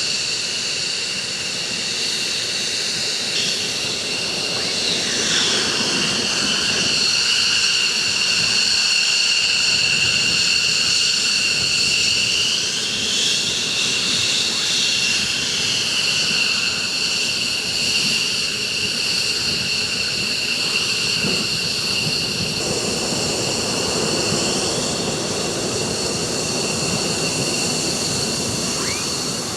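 Jet aircraft engine running with a steady high-pitched whine over a noisy rush; a pitch slides downward about five seconds in.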